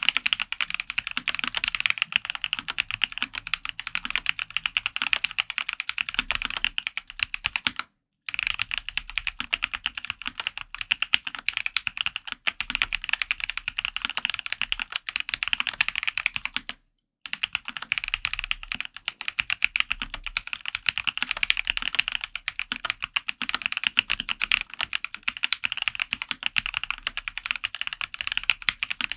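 Fast, continuous typing on a Dolphin PC custom mechanical keyboard with lubed Gateron Oil King linear switches on a polycarbonate plate, dampened with plate and case foam: a dense run of key clacks. The typing cuts off twice for a moment, about a quarter and a bit over half of the way through.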